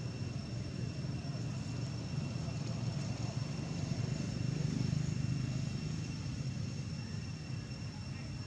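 Steady low rumble of outdoor background noise, a little louder about halfway through, with a faint steady high-pitched whine above it. No distinct animal call or other event stands out.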